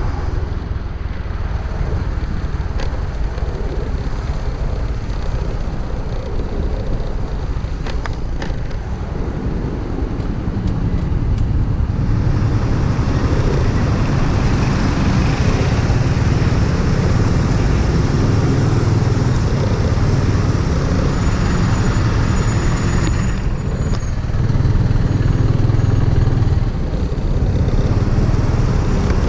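Freshly overhauled motorcycle riding in traffic: the engine runs steadily under wind and road noise, growing louder about twelve seconds in and swelling again briefly near the end.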